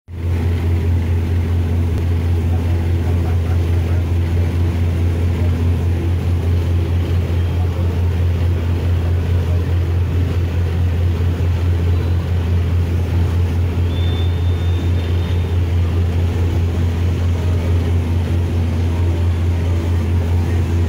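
Riverboat diesel engine running at steady cruising speed: a deep, even drone with no changes in pace.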